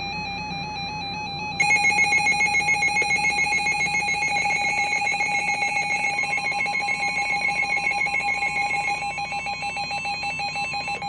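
Electronic alert tone: a rapid warbling trill like a telephone ringer, jumping louder about a second and a half in and pulsing evenly on, the attention sound that introduces a broadcast severe thunderstorm warning.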